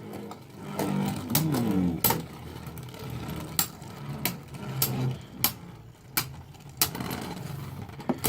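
Plastic Beyblade spinning tops whirring in a plastic stadium, with a series of sharp separate clacks as they strike each other and the stadium walls.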